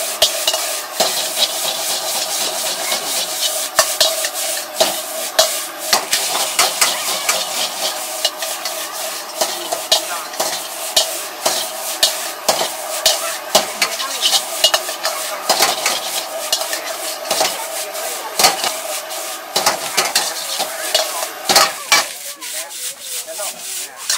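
Egg fried rice stir-fried in a wok: a metal ladle scraping and clanking against the wok again and again, irregularly, over a steady sizzle.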